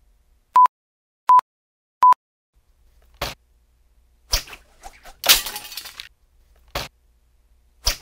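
Three short, identical beeps, evenly spaced, then foley for thrown vinyl records: quick whooshes from a stick hung with zip ties, and a longer crash of breaking about five seconds in.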